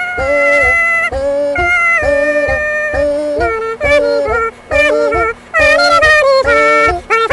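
Wordless yodel-like singing: a voice sings a run of short held notes, flipping back and forth between a low and a high register, over a steady low drone.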